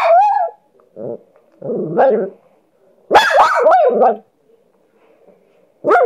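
A dog vocalising back while being teased: about five loud bursts of barking and grumbling with pitch that bends up and down, the longest about halfway through.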